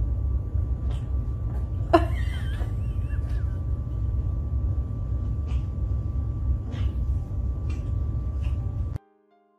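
Two cats play-fighting on a carpet, with a short sharp cat cry about two seconds in and a few light scuffs and thumps. All of it sits over a steady low rumble and a faint steady tone.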